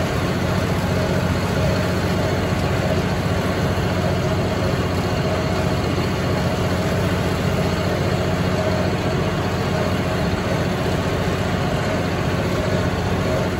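John Deere 5045E tractor's diesel engine running steadily, heard from the driver's seat while mowing with a John Deere MX8 rotary cutter.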